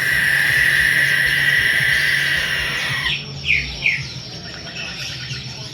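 Young owl giving a long, hissing screech for about three seconds, then three short, falling calls.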